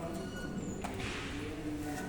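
Distant voices talking, with a short hiss of noise about a second in.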